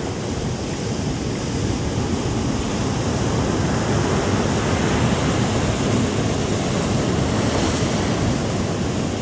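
Ocean surf breaking and washing through the shallows in a steady, continuous roar of whitewater, with wind buffeting the microphone.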